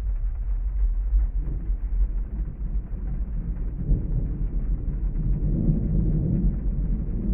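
Steady rain ambience with a constant low rumble underneath; about four seconds in, a deeper rolling rumble swells up and falls away again near the end.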